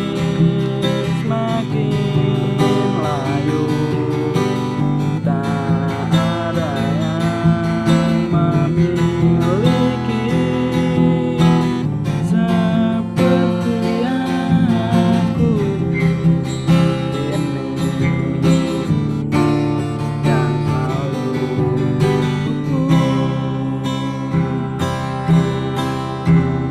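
Music: strummed acoustic guitar with a gliding melody line over it, a passage of a song without lyrics.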